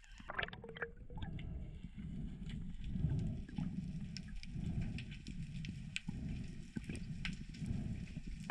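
Underwater ambience: a low, pulsing rush of water with scattered faint clicks, and a brief bubbly gurgle in the first second.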